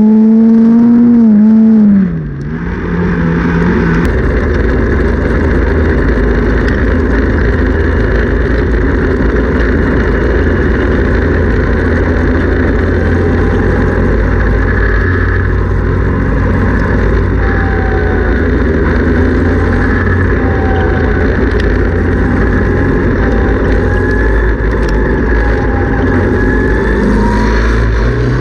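Onboard sound of a Ford Focus midget race car's four-cylinder engine. It is held at a steady high pitch for the first two seconds, then drops as the throttle lifts, and settles into a long low, steady rumble. Near the end it revs up again with a rising pitch.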